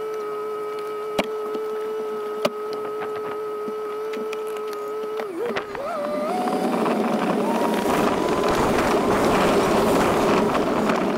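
A motor vehicle's engine holds a steady hum for about five seconds, with two sharp clicks. Then it revs up and runs under way, its pitch climbing, with a rush of wind noise.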